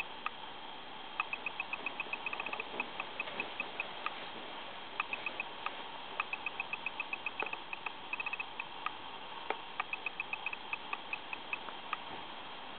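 Light mechanical ticking: quick, sharp ticks in irregular runs of several a second, with pauses between runs, over a steady hiss.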